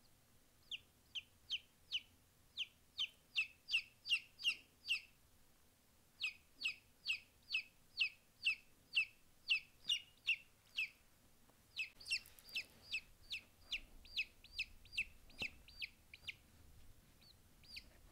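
Showgirl silkie chick peeping: loud, high, repeated peeps at about two to three a second, each falling in pitch, in three runs with brief pauses between them.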